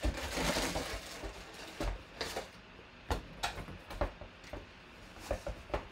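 Handling noises: a rustle in the first second, then scattered short clicks and light knocks.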